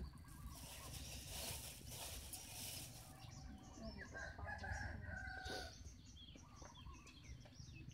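A rooster crowing faintly in the background, its call ending in a long held note about halfway through.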